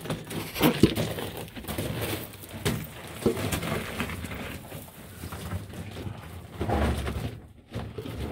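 A person crawling over loose crushed rock and gravel, hands, knees and boots crunching and scraping, with many small irregular clicks and scuffs of stones shifting.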